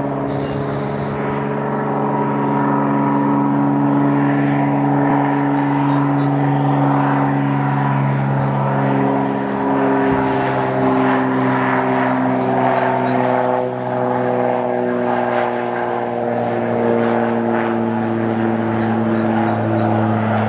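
Cessna 182P Skylane floatplane's piston engine and propeller running steadily as it flies a low landing approach past, the pitch slowly falling through the second half.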